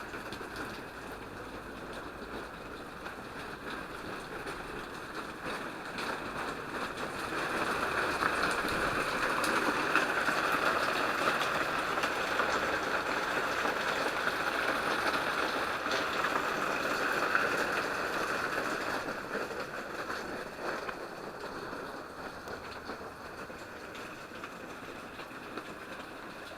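Waterfall's rushing water, a steady hiss that grows louder about a quarter of the way in and eases again past the middle.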